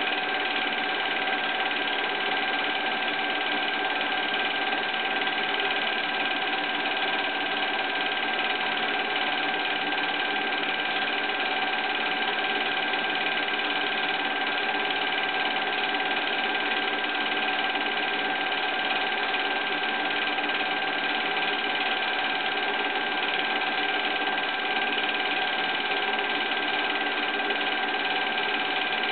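Film projector running steadily: an even motor-and-mechanism whir with a constant high hum, unchanging throughout.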